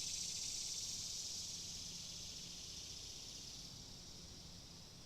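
Cicadas buzzing: a high, steady chorus that slowly fades away.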